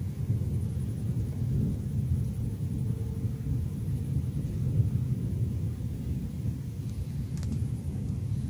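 Thunder rumbling, low and fairly steady.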